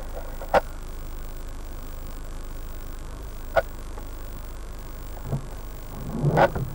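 Steady low hum heard from inside a car cabin, with a few sharp clicks, a low knock and a short louder sound near the end.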